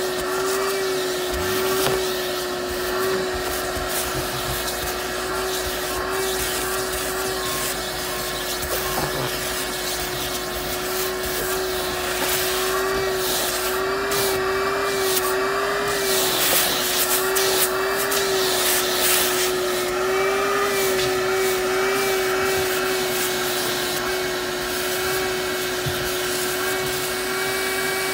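Vacuum cleaner running steadily, its nozzle sucking dirt from old car floor carpet. Its motor whine wavers slightly in pitch, with crackling now and then as debris goes up the hose.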